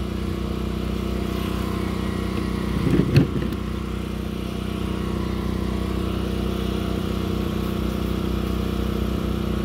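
Steady low hum of a running engine, unchanged throughout, with a brief louder sound about three seconds in.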